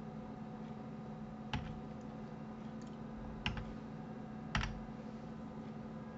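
Computer keyboard keystrokes: three separate sharp key clacks spread a second or two apart, with a couple of fainter ticks, over a faint steady low hum.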